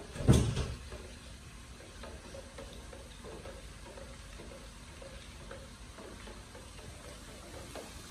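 A spoon stirring a besan and lassi mixture in a steel pot: soft scraping strokes, repeated steadily, after one loud knock just after the start.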